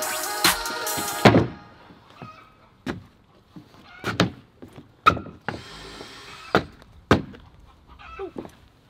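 Background music that stops about a second in, then scattered knocks and thuds from composite deck boards being handled and boots on the decking, with a brief scrape in the middle.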